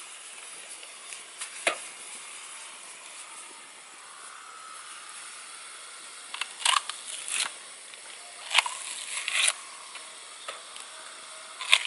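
Coconut husk fibres being torn off by hand and teeth: about six short, sharp tearing rips at irregular intervals, most of them in the second half, over a steady faint hiss.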